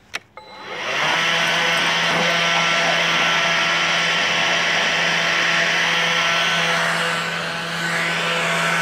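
Leaf blower switched on with a click, spinning up over about a second to a loud steady rush of air over a motor hum, which dips briefly near the end as the air stream shifts.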